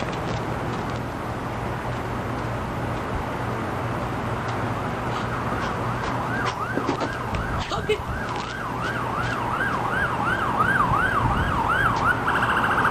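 Steady traffic noise. About halfway through, an emergency vehicle's siren comes in, wailing up and down about twice a second and growing louder. Near the end it switches to a steady horn note.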